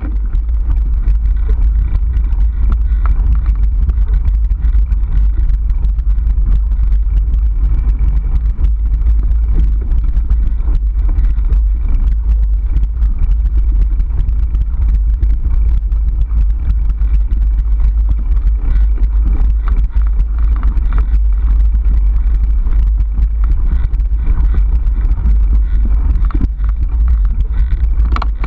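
Mountain bike riding a bumpy dirt single track, heard through a handlebar-mounted action camera: a loud, steady low rumble of trail vibration and wind on the microphone, with many small knocks and rattles from the bike.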